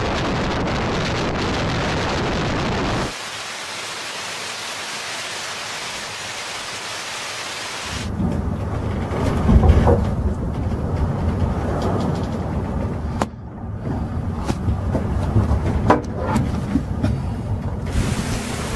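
Storm noise at sea: a steady hiss of wind and rain, changing sharply near three seconds. From about eight seconds comes a low rumble of wind buffeting, with crackling spatters of rain and spray.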